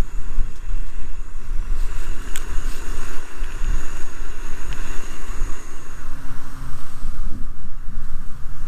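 Wind buffeting the microphone on an exposed hillside: a loud, gusting low rumble with a hiss above it. A faint low steady hum comes in about six seconds in.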